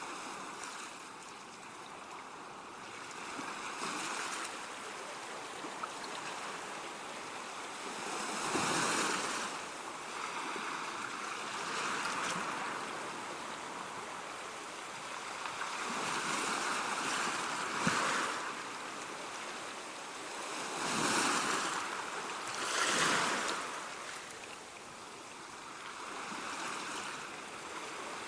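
Ocean waves breaking and washing up the shore, the surf swelling and fading every few seconds, with two louder breakers close together near the end.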